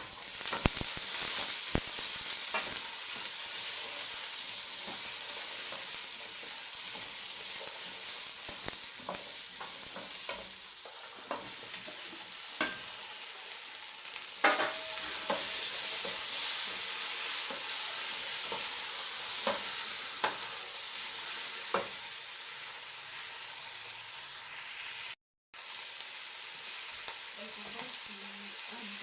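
Onions, carrots and bell peppers frying in hot oil in a cooking pot, sizzling with a steady hiss that is loudest in the first few seconds after the peppers go in and eases off. A spoon clicks and scrapes against the pot now and then as the vegetables are stirred, and the sound cuts out for a moment near the end.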